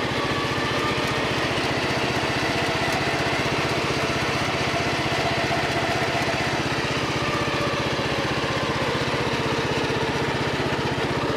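Racing mower built from a Craftsman II riding mower, its small engine running steadily at a constant speed while driving, heard close from the driver's seat.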